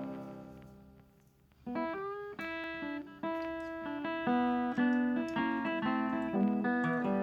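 Background music of plucked guitar: a chord rings out and fades, then after a short pause the picking resumes about a second and a half in.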